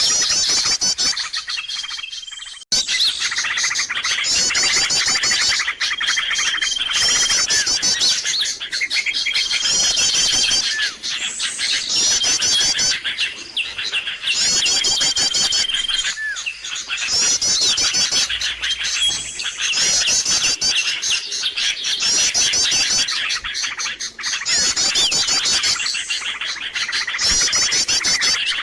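Noisy bird-lure recording: many small birds chirping and trilling densely and without pause, with short high whistled notes now and then. The sound cuts out for a moment about two and a half seconds in.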